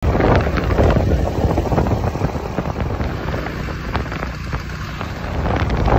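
Motor scooter riding along a road, its engine running, heavily mixed with wind buffeting the microphone.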